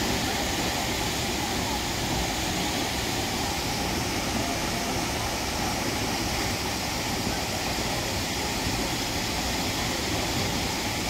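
Hunua Falls waterfall pouring into its plunge pool: a steady, even rushing of falling water.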